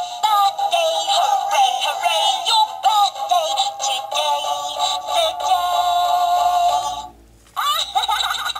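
A My First Thomas & Friends Railway Pals Rosie talking toy engine playing its electronic birthday song, a synthesised tune with a sung melody. It breaks off for about half a second around seven seconds in, then the singing starts again.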